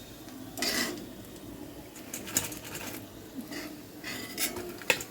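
Cooking utensil scraping and clinking against a pan of chicken balls frying in oil: a scrape a little under a second in, then several sharp clicks and short scrapes, the loudest click near the end, over a faint steady hiss.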